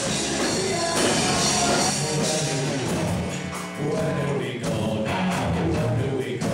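Live rock band playing, with a singer's voice over guitar and drums.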